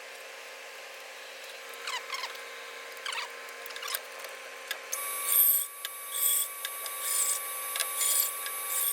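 Woodworking with a power tool: a few knocks and scraping strokes, then from about halfway a steady machine whine with bursts of cutting about once a second.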